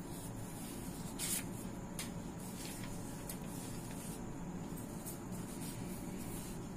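Hands moving over a sheet of paper make a few brief soft rustles. The clearest comes about a second in and fainter ones are scattered after it, over a steady low room hum.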